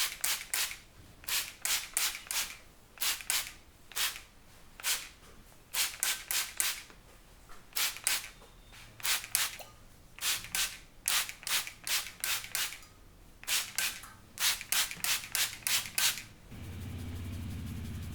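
Hands striking a head during an Indian head massage: sharp slaps and claps in quick bursts of two to five, repeated every second or so. Near the end the strokes stop and a steady low hum begins.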